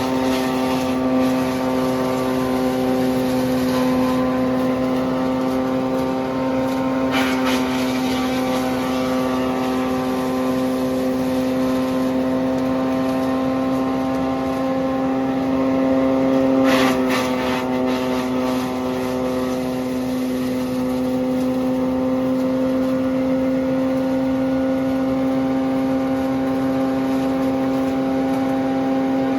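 Diesel-powered wood chipper with a four-cylinder engine running steadily, giving a strong constant drone. Twice, about a quarter and about halfway through, there is a brief louder surge of noise over it.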